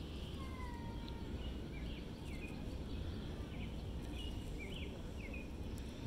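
Faint, short bird chirps scattered through the sound, with two thin drawn-out whistles about half a second in, over a steady low outdoor background rumble.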